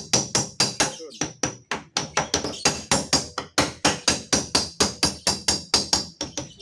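Rapid hammer taps on a car door's sheet-steel panel, about five sharp strikes a second with a short metallic ring, as a dent is worked out.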